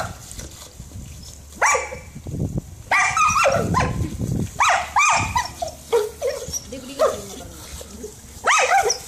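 Kelpie barking and yelping in play while biting at a spraying lawn sprinkler: short, high, excited barks in repeated bursts, about one every second or two.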